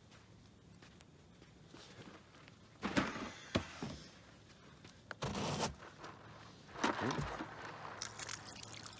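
A few knocks and rustles of handling, then water running from the spigot of a plastic water cooler near the end, splashing over hands rinsing catfish fillets.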